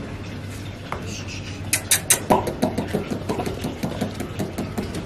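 Bully Kutta puppies licking and mouthing at food in a man's hand. A run of quick wet smacking clicks starts about a second and a half in and goes on irregularly, several a second.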